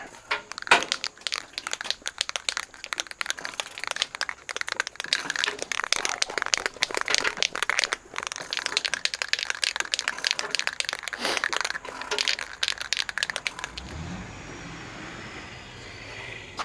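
Aerosol can of primer being shaken hard, the mixing ball rattling and clicking in quick, uneven strokes for most of the time. Near the end the rattling stops and a truck engine revs up with rising pitch, its driver hunting for a gear.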